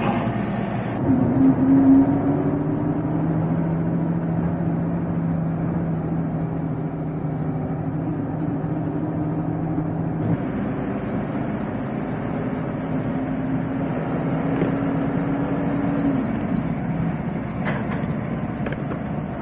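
Old truck's engine running while driving, heard from inside the cab as a steady drone that drops in pitch near the end.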